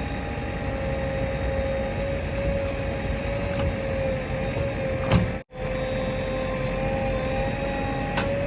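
Diesel engine of a JCB 3DX backhoe loader running steadily, with a steady whine over the rumble. The sound breaks off for an instant about five and a half seconds in, then carries on the same.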